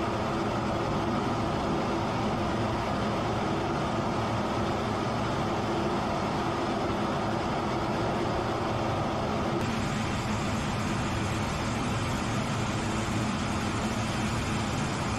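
Steady rush of jet engine and airflow noise inside a fighter jet's cockpit in flight, with a faint low hum beneath.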